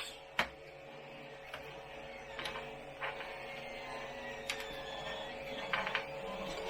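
Styrene plastic kit parts clicking and knocking as a plastic disc is pressed down onto plastic stands and snaps into place, with a sharp click about half a second in and several more spread out after it. A faint steady hum runs underneath.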